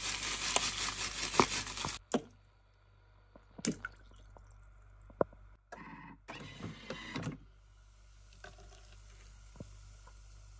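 Rolled oats pouring from a paper bag into a Thermomix's stainless-steel mixing bowl: a dense rattling hiss that stops suddenly about two seconds in. Quieter knocks and clicks follow as the bowl's lid is handled and fitted.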